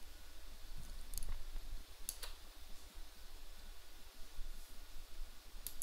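Computer mouse buttons clicking faintly: a few separate clicks, some in quick pairs, over a low steady hum.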